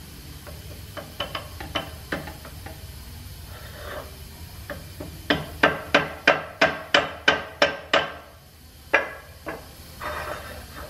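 Hammer striking a metal driver to set a new aluminum bushing into a connecting rod's small end. A few light taps come first, then a quick run of about ten sharp blows, roughly four a second, and two more after a short pause.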